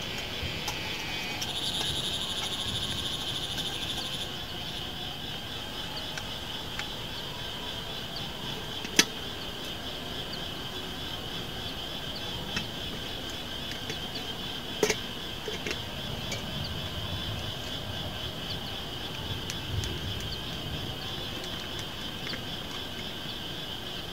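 Steady evening chorus of insects, a fine high pulsing chirr, with a few sharp clicks and knocks from gear being handled; the loudest click is about nine seconds in.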